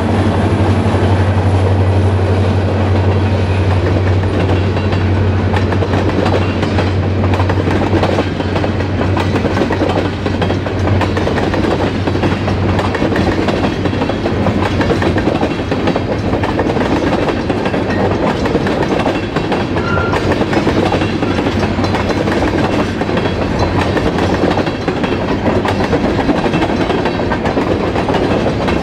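Diesel freight locomotives' engines droning low for the first few seconds as they pass. Then a long string of freight cars, tank cars and boxcars, rolls by, wheels rumbling and clacking over the rail joints.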